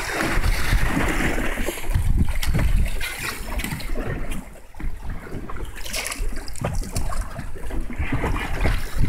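Wind buffeting the microphone over water splashing against a small boat's hull on the open sea, with a few brief knocks.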